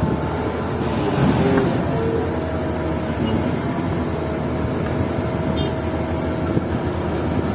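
Caterpillar 120K motor grader's diesel engine idling steadily, heard from inside the cab. A faint steady higher tone joins in about two and a half seconds in.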